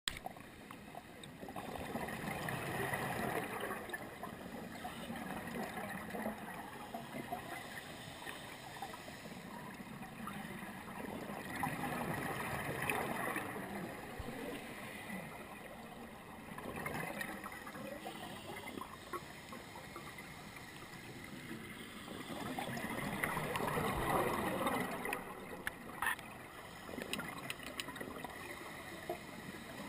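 Underwater gurgling and bubbling, muffled through the camera's housing, swelling up several times for two or three seconds at a time, as a scuba diver's regulator releases exhaled bubbles. A few short clicks come near the end.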